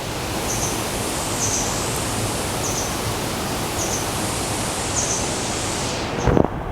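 Steady, dense rush of water pouring over the Düden waterfall. A faint short high chirp repeats about once a second, and there are a couple of knocks near the end.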